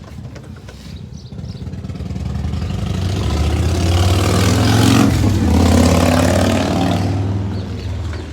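A motor vehicle driving past: its engine grows louder, peaks about five seconds in, then fades away.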